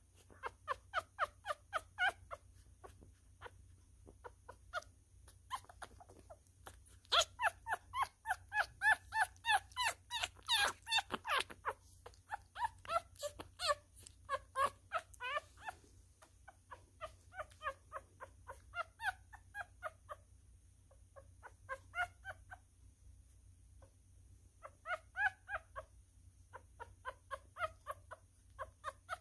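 Newborn miniature schnauzer puppy crying: short pitched cries, about three a second, coming in bouts with short pauses, loudest about a quarter of the way in.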